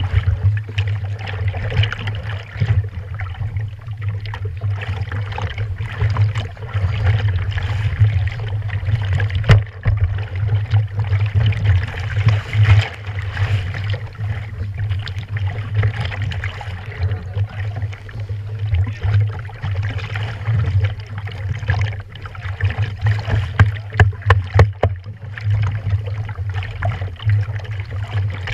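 Small waves lapping and sloshing against the hull of a stand-up jet ski, close to the mounted camera at the waterline, over a steady low rumble, with a few sharp knocks and splashes.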